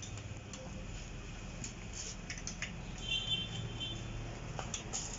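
Scattered light clicks and taps of hands and tools working on the parts of a new mountain bike, over a steady low hum. There is a brief high chirping about three seconds in.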